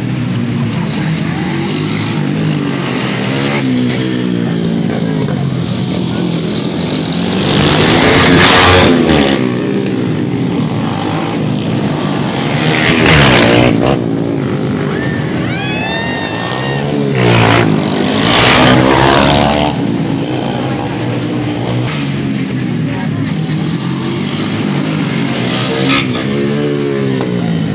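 Racing underbone motorcycles revving up and down as they lap a tight circuit. The engine pitch rises and falls through each corner, with loud close passes about eight seconds in, again around thirteen seconds, and twice more around seventeen to nineteen seconds.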